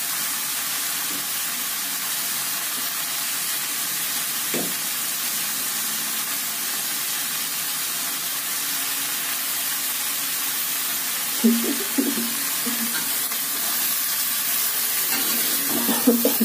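Water spinach sizzling steadily as it fries in an aluminium wok. In the second half a metal spatula scrapes and knocks against the wok a few times as the greens are stirred, loudest about eleven seconds in and near the end.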